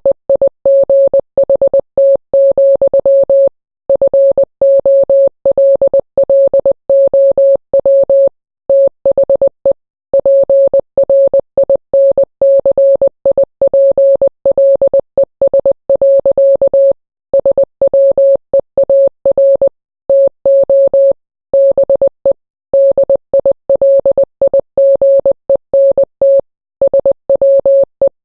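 Morse code sent as a single steady mid-pitched beep, keyed on and off in short dots and longer dashes. Short pauses separate the characters and longer gaps separate the words.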